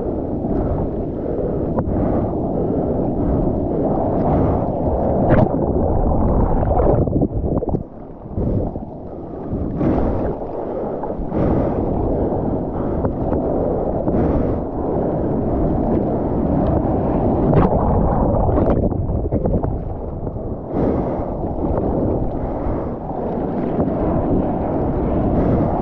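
Seawater rushing and splashing over a GoPro held on a bite mount while paddling a bodyboard through whitewater, heard muffled through the camera's waterproof housing, with frequent short splashes and wind buffeting on the microphone. The rush drops briefly about eight seconds in.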